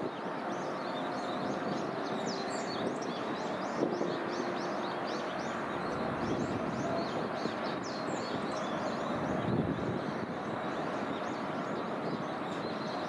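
Small birds chirping rapidly and continuously in high, short notes over a steady rushing background noise.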